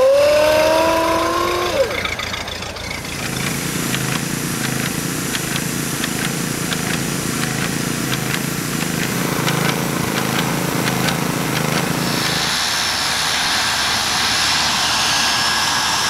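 A Ford Model A's Klaxon horn sounds a rising-then-falling 'ahooga' in the first two seconds. A line-marking paint sprayer then runs steadily for about ten seconds. Near the end a higher whine from a Quest Kodiak's turboprop engine takes over.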